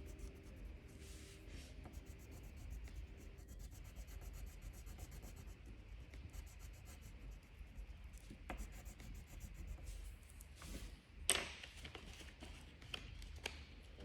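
Drawing strokes scratching and rubbing on paper, short repeated strokes with one louder stroke near the end.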